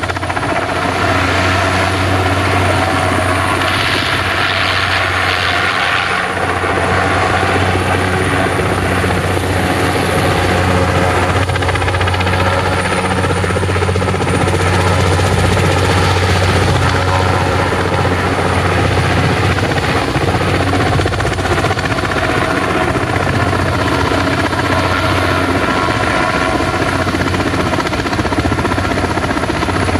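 Helicopter hovering overhead with a load cable hanging below, its rotor and engine running steadily. The sound is a loud, even deep thrum with a thin high whine above it.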